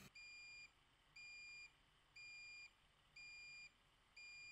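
Yellow Jacket AccuProbe IR refrigerant leak detector beeping faintly: a high electronic beep about half a second long, repeating once a second, five times.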